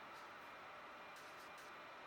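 Near silence: steady low hiss of room tone with a few faint, short high ticks.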